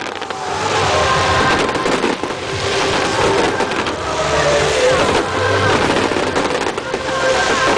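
Fireworks display: a dense, continuous rumble and crackle of shells bursting.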